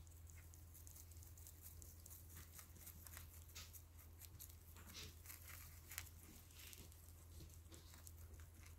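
Faint, scattered quick clicks of hamsters nibbling a piece of cucumber, over a steady low hum.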